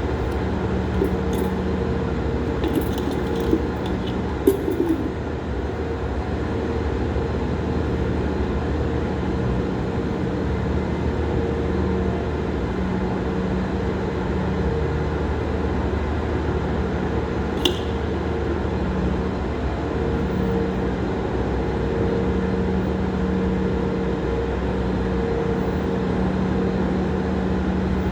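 Steady machine hum with two low steady tones over even noise, with a few light clicks and knocks in the first five seconds and one sharp click about 18 seconds in.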